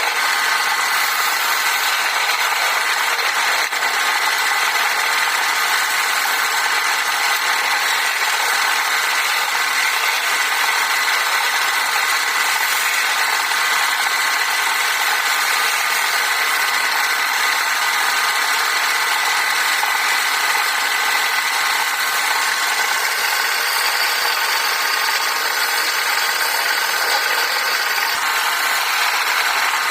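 Wood lathe running steadily: a motor whine over the hiss of wood being worked on the spinning piece.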